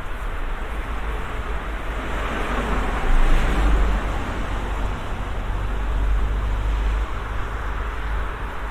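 A car passing on the street: its tyre and engine noise swells to a peak about three seconds in, then fades, over a steady low rumble of street traffic.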